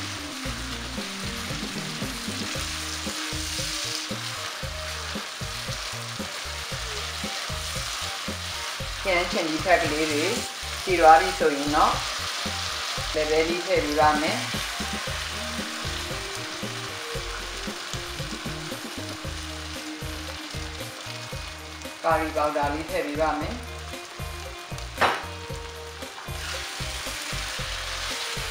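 Tomato masala sizzling in oil in a nonstick wok while a silicone spatula stirs it; partway through, dry chana dal (split chickpeas) is tipped in from a bowl and stirred in. Short squeaky pitched sounds come a few times about a third of the way in and again later, with one sharp knock near the end.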